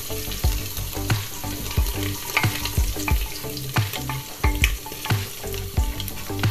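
Food sizzling in a hot pan while it is stir-fried, with a spatula knocking and scraping against the pan two or three times a second.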